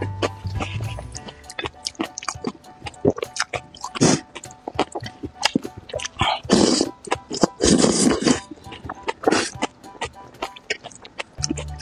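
A person slurping noodles loudly several times, about four, seven, eight and nine seconds in, with chewing and wet mouth clicks between the slurps, over background music.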